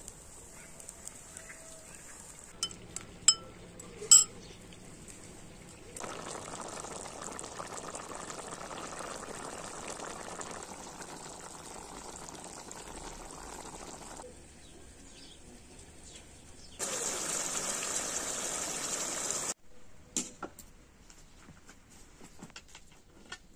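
Chicken and tomato stew simmering and bubbling in a pot over a wood fire, an even hiss through the middle. Three sharp clinks come a few seconds in, and a louder, brighter hiss lasts about three seconds past the middle.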